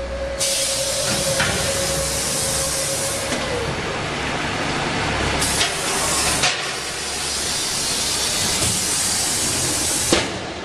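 Loud, steady hissing in long spells. It starts about half a second in, breaks off twice, and stops abruptly near the end.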